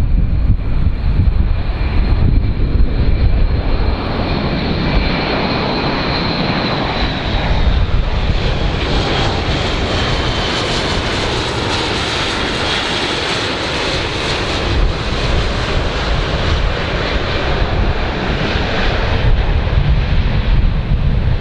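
Airplane engines running: a steady low rumble under a high whine that slides slightly down in pitch. A broad rushing noise swells through the middle and eases off toward the end.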